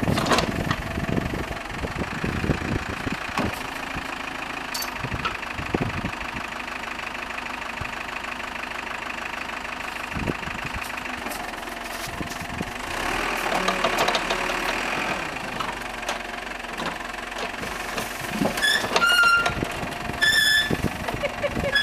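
Loader tractor's engine idling steadily, swelling louder for a couple of seconds about halfway through. A few short high squeaks sound near the end.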